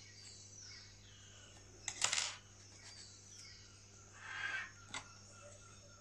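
Small handling noises at an insect-mounting board: a click, then a short scratchy rustle about two seconds in, a softer rustle around four and a half seconds, and a light click just after, as pins, tweezers and the mounting strip are handled over the cicada's wing.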